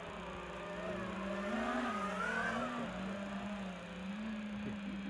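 FPV racing quadcopter in flight: its motors and propellers whine at a pitch that rises and falls with the throttle.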